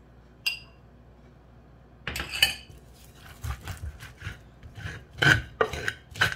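Wooden pestle knocking and grinding against a ridged earthenware grinding bowl (asanka) as roasted cocoyam is mashed with palm oil. There is a single tap about half a second in, then irregular knocks and scraping strokes from about two seconds on.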